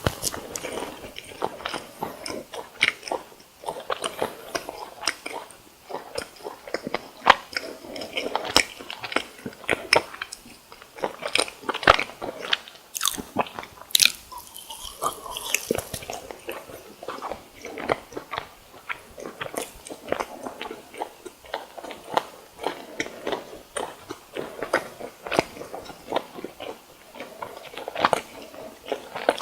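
Close-miked biting and chewing of crisp fried food, sweet rice doughnuts and croquettes: a steady run of crunchy crackles and wet chews, with a few louder crunches.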